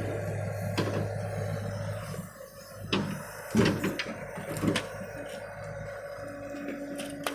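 A machine engine hums steadily, then drops away about two seconds in, followed by several sharp clanks and knocks, the loudest about three and a half seconds in.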